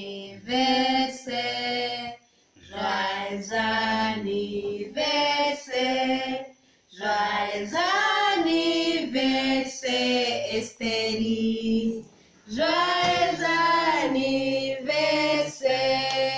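Voices singing a song, led by a woman's voice, in sung phrases of a few seconds each with short breaks about 2.5, 7 and 12 seconds in.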